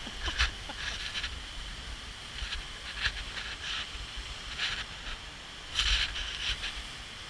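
Seljalandsfoss waterfall rushing steadily, with gusts of wind buffeting the microphone and irregular short scuffs several times.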